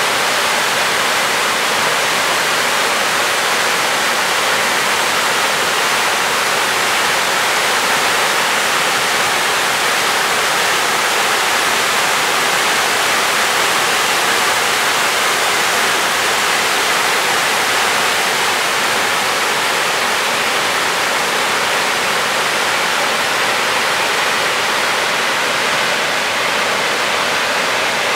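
Waterfall: a loud, steady, even rush of falling water.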